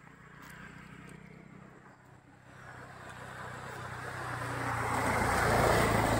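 A motor vehicle engine running, growing steadily louder over the last few seconds.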